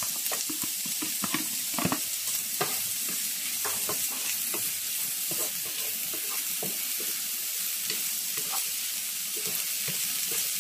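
Small peeled prawns sizzling in a little oil in a nonstick frying pan: a steady hiss, with a spatula scraping and knocking against the pan at irregular moments as they are stirred.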